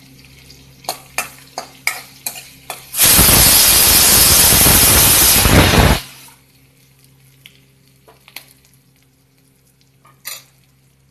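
A metal spatula scraping and clicking against a kadhai as ginger and green chillies fry in mustard oil, a few strokes a second. About three seconds in, a loud hissing sizzle starts abruptly and cuts off just as suddenly three seconds later. Only a few faint spatula clicks follow.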